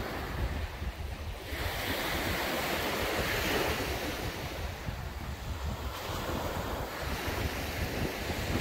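Sea waves breaking and washing up a beach, with wind buffeting the microphone. The surf swells about a second and a half in and eases off a little after the middle.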